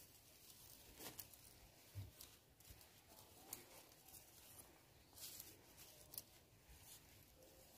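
Faint rustling and scattered light clicks of thin dry twigs being picked up and knocked together while they are gathered into a bundle by hand.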